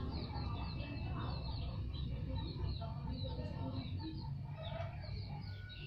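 Birds chirping: many short, high, quick calls repeating over and over, over a steady low rumble.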